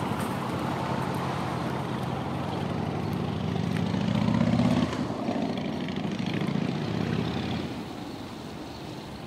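An engine running with a steady low drone that swells up to about five seconds in, drops abruptly there, and fades away near the end.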